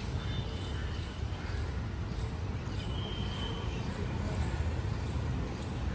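Footsteps on stone paving at a steady walking pace, about two steps a second, over a steady low rumble of wind or handling on the phone's microphone. A brief high chirp sounds about three seconds in.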